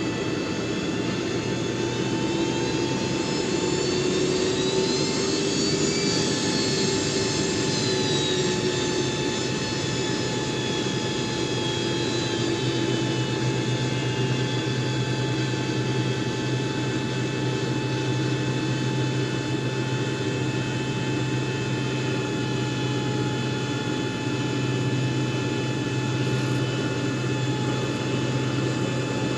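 Passenger jet's engines idling: a steady multi-tone whine over a rushing hiss and a low hum. A few seconds in the high whine rises and then sinks back, and about halfway through the low hum grows stronger.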